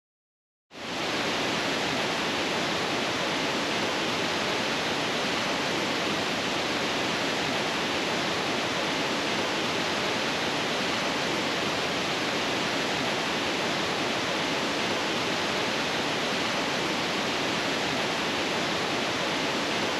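Steady rush of a woodland stream tumbling over small cascades and a waterfall: an even, unbroken hiss that comes in quickly just under a second in.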